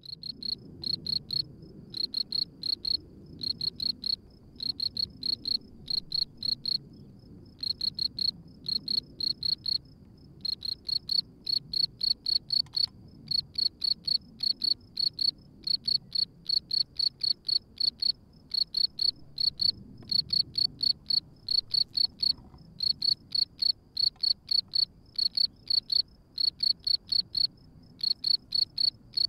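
Male European field cricket chirping at its burrow: short chirps of a few quick pulses, repeated several times a second with brief pauses now and then.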